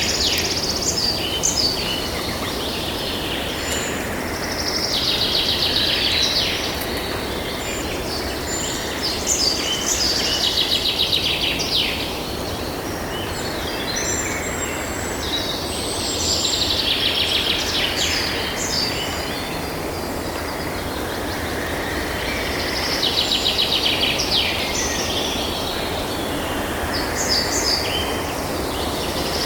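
Night nature ambience: high, rapidly pulsing trills come in bouts of two to three seconds and recur every several seconds over a steady low background rumble and hiss.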